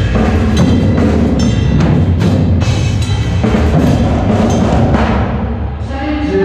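Indoor percussion ensemble playing: marching drums with front-ensemble mallet percussion, a dense and rhythmic passage, with sustained pitched notes near the end.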